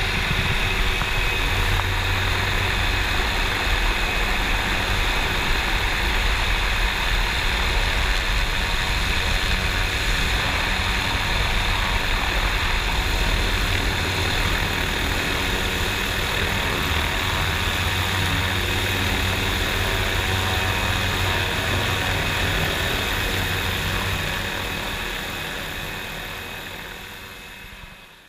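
Rescue helicopter in flight, heard from inside its cabin: steady rotor and engine noise that fades away over the last few seconds.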